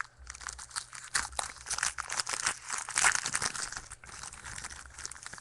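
Foil trading-card pack wrapper being torn open and crinkled by hand: a dense run of irregular sharp crackles, busiest in the middle.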